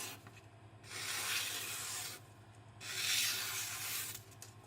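Gyuto chef's knife slicing through magazine paper, two long papery swishes about a second each: a sharpness test showing the freshly sharpened edge cutting cleanly.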